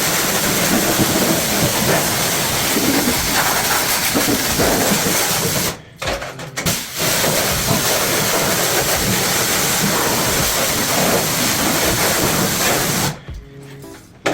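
High-pressure spray hissing steadily, cut off twice for a moment around halfway and stopping shortly before the end.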